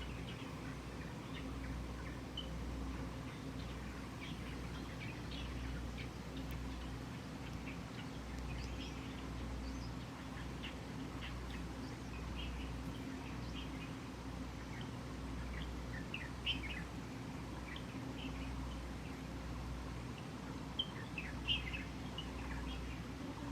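Cat purring steadily while being massaged, the low rumble swelling and easing in even cycles about a second long, a sign the cat is content. Birds chirp in short bursts in the background.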